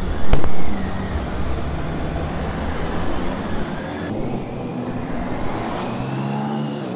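A car door slams shut about a third of a second in, then an Audi saloon pulls away under hard acceleration. Engine and tyre noise follow, with an engine pitch rising near the end as the convoy speeds off.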